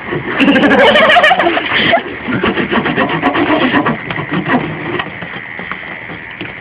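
Loud laughter for about two seconds, then a quick run of clicks and scraping sounds that fades away.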